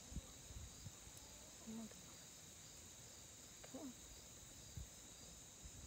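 Faint, steady high-pitched chorus of insects such as crickets, droning on without a break, with a few soft low knocks.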